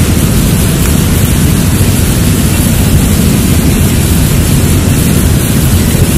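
Loud, steady rushing noise, heaviest in the low end, typical of wind buffeting the microphone outdoors.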